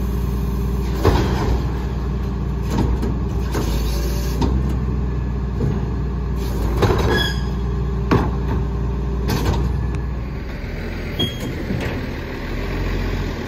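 Labrie Expert side-loading garbage truck idling steadily, with a series of sharp metal clangs and bangs as a trash cart is emptied into the hopper. The engine note changes about ten seconds in.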